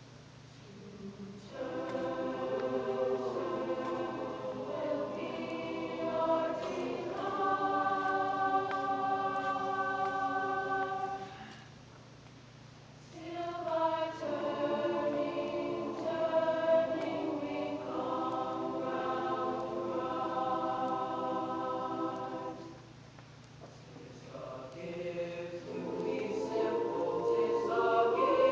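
A middle-school mixed choir singing sustained chords under a conductor, in long phrases broken twice by short pauses.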